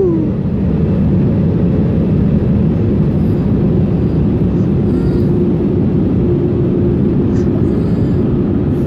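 Car wash air-dryer blowers running, heard from inside the car: a loud, steady rush of air with a steady hum underneath.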